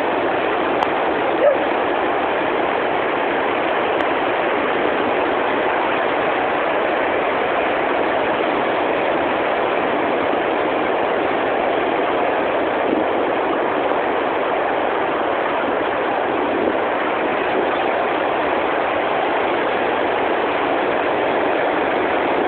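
Steady, even noise of sea waves breaking on a beach, with a few faint ticks.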